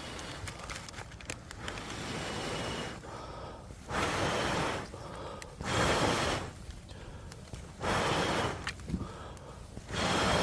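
A person blowing hard in four long breaths, about two seconds apart, each a rush of air lasting under a second, as when blowing on kindling to get a campfire to catch.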